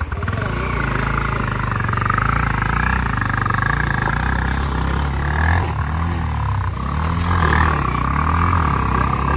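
Motorcycle engine running, its pitch rising and falling a few times as it is revved.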